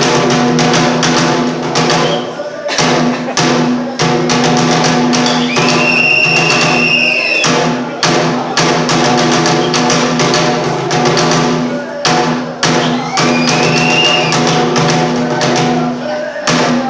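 Bitchu kagura accompaniment music: rapid taiko drum strokes over a steady low drone. A high note slides up and holds twice, about five seconds in and again near thirteen seconds.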